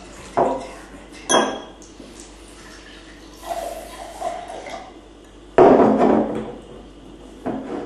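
Two short sharp knocks in the first second and a half, then a louder clatter about five and a half seconds in that dies away over about a second.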